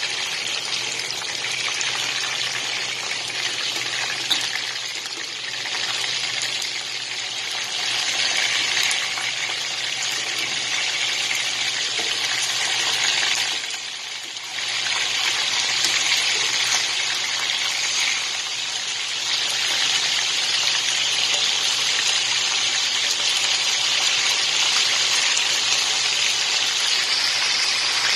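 Chicken pieces frying in hot oil in a pan: a steady sizzle that dips briefly about halfway through, over a faint low hum.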